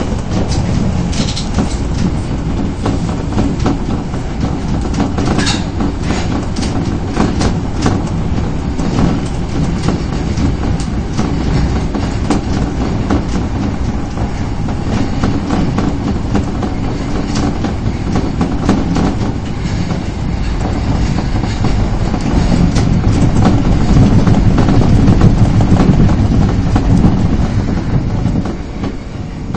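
Osaka Metro Tanimachi Line subway train running between stations, heard inside the car: a steady low rumble of wheels on rail with scattered clicks, growing louder about three-quarters of the way through and easing near the end.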